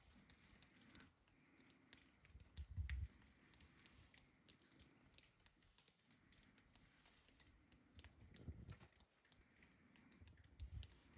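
Faint patter of birdseed pouring into a plastic milk-jug bird feeder: many small quick ticks, with a few low thumps, the loudest about three seconds in.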